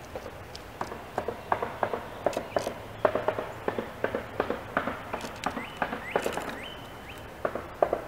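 A bird at a wooden box feeder makes irregular sharp taps and knocks on the wood, about two to four a second, most likely a red-bellied woodpecker. Between about five and seven seconds in come a few short bird chirps that step up in pitch.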